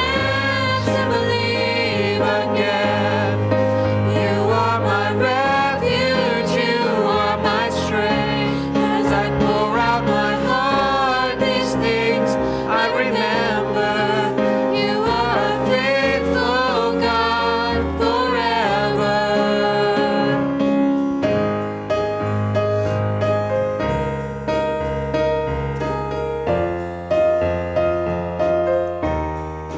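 Live worship song: several voices singing together over electric keyboard chords. About two-thirds of the way through the voices stop and the keyboard plays on alone with sustained chords.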